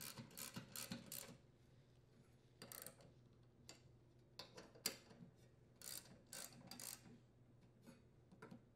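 Hand socket ratchet clicking in several short bursts while tightening bolts.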